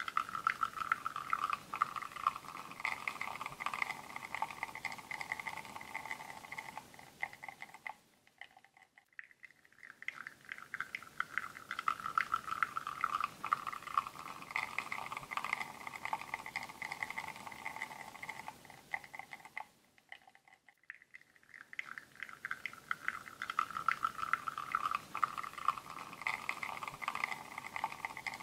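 Espresso machine pulling a shot: the pump running while coffee streams and spatters from a bottomless portafilter into a cup. It fades almost away for a couple of seconds twice, about eight and twenty seconds in, then picks up again.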